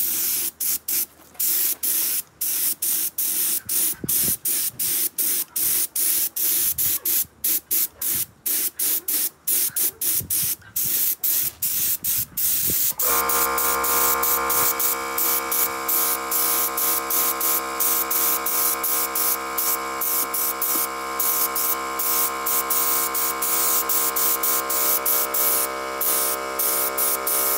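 Aerosol spray paint can hissing in short on-off bursts, several a second, as paint is sprayed onto a masked alloy wheel. About halfway through, steady sustained background music comes in under the spraying.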